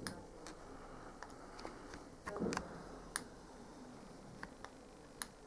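Faint handling noise: about a dozen scattered sharp clicks and ticks, with a soft rustle or knock about two and a half seconds in.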